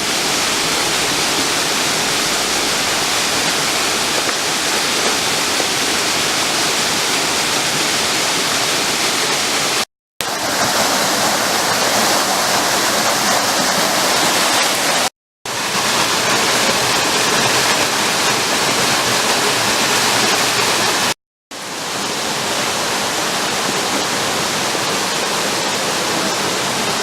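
Waterfall rushing, loud and steady, with no speech; the sound drops out for a moment three times.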